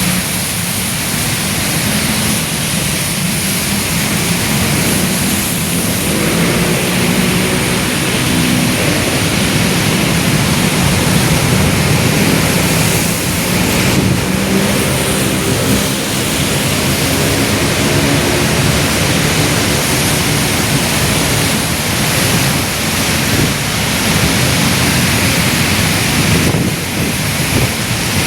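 Heavy rain pouring in a steady loud hiss, with vehicle engines running through it for a stretch in the middle.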